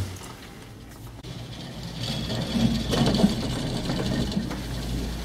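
Steady mechanical hum inside a moving cable car cabin. About two seconds in it grows louder, with a high whine and some clattering.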